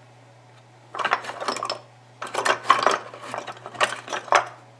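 Small wooden-handled chisels and knives clattering and clinking in a wooden tray as a hand rummages through them, in several short bursts starting about a second in.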